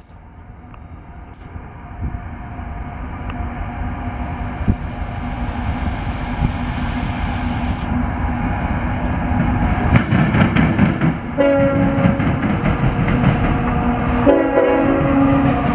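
Approaching CSX diesel freight train, its locomotive and wheel noise growing steadily louder. About two-thirds of the way through, its air horn sounds a long blast, pauses briefly, then sounds again as the locomotive draws close.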